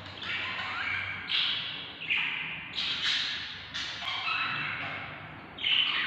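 Budgerigar chicks in the nest box giving harsh, raspy begging cheeps, about seven in a row. Each call rises in pitch and then fades.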